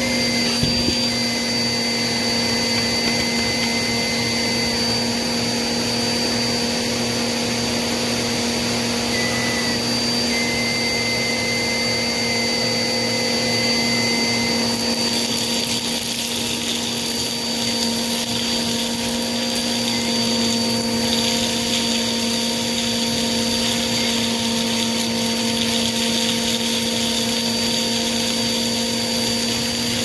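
Vacuum cleaner running steadily, a constant motor whine over the rush of its suction. The airy hiss grows a little stronger about halfway through.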